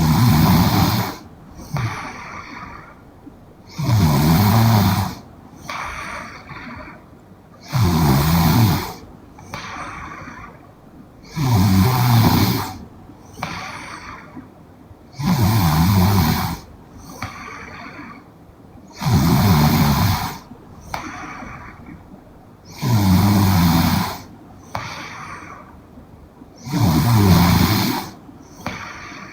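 A young woman snoring in her sleep in a slow, regular rhythm: a loud, low, rattling snore about every four seconds, eight in all, with a softer breath between each.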